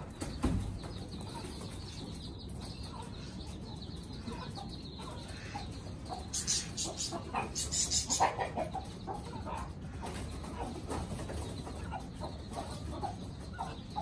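Chickens clucking softly while feeding, with short calls scattered throughout. There is a thump about half a second in, and a few loud rustling bursts, like wing flaps, between about six and eight seconds in.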